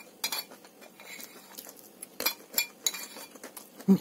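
Metal cutlery scraping and clinking against a ceramic plate in short, irregular clicks as the last of the food is gathered up. A brief louder low sound comes near the end.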